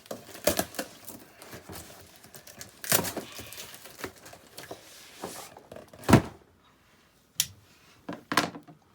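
A box and its packaging being opened and rummaged through by hand: rustling and scattered clicks, with a heavy thump about six seconds in and two sharp clicks near the end.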